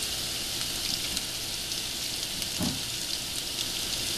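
Oil sizzling steadily in a nonstick frying pan as chopped ginger, garlic, green chillies and curry leaves fry in it.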